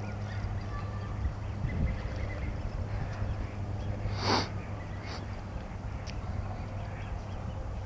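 A short splash of water about four seconds in, with smaller ones after, as a caught channel catfish is let go at the pond's edge, over a steady low outdoor rumble.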